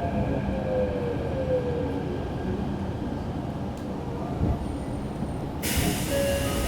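Tokyo Metro 03 series subway car's IGBT-VVVF inverter whine, heard from inside the car over the steady rumble of wheels on rail. The whine glides down in pitch, typical of the train slowing under braking. Near the end a sudden high hiss sets in.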